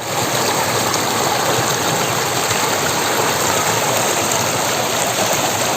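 Rushing water of a waterfall stream: a loud, steady, even rush with no break.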